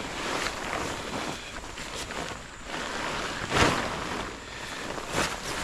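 Wind blowing over the microphone with lake water washing at the shore, rising and falling in surges, the loudest about three and a half seconds in.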